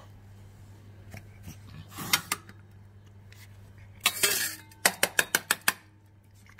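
Tin of tuna clinking and scraping against stainless steel cat-food bowls as the tuna is emptied out: a few clinks about two seconds in, a short scraping rush about four seconds in, then a quick run of about seven sharp clinks.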